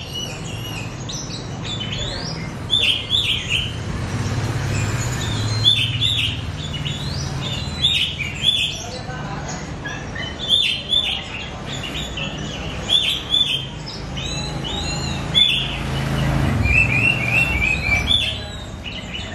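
Young oriental magpie-robin (kacer), still learning its song, singing in short clusters of chirping notes every second or two, with a run of quick repeated notes near the end, over a low steady rumble.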